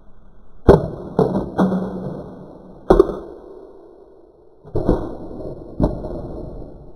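Sharp plastic knocks and clacks, about six of them in three clusters, each with a short ringing tail, as a small toy car is pushed into its orange plastic spring launcher.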